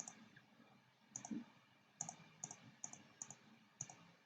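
Calculator keys being pressed to enter a sum: about nine faint, short clicks at an uneven typing pace, many heard as a quick double tick.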